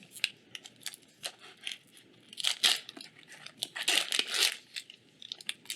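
Magic: The Gathering draft booster pack's foil wrapper being torn open and crinkled. Quick crackling ticks at first, then two longer rustling rips about two and a half and four seconds in.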